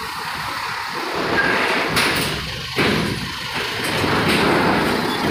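Heavy vehicle running and rolling aboard over a ferry's steel loading ramp: a broad rumble that grows louder about a second in, with a sharp clank near the three-second mark.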